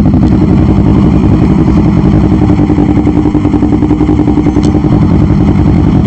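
Motorcycle engine running steadily at low revs in slow traffic, its note holding an even pitch.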